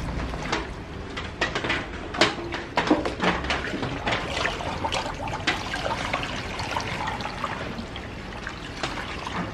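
Water splashing and sloshing in irregular short splashes as hands swish morning glory (water spinach) through a plastic basket of water in a stainless steel sink. Near the end the basket is lifted, and the splashing thins to dripping and trickling.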